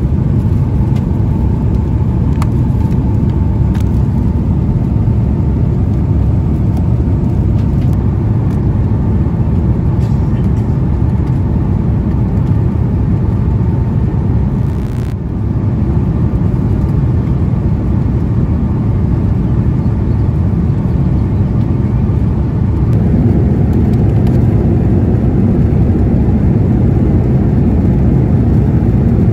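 Airliner cabin noise inside an Airbus A330-200 in flight: a steady, deep rush of engine and airflow noise, a little louder for the last few seconds.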